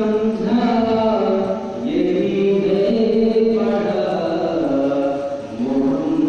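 A man singing a naat, an Urdu devotional poem in praise of the Prophet Muhammad, solo and without instruments. He holds long notes that glide from one pitch to the next, with short breaks about two seconds in and near the end.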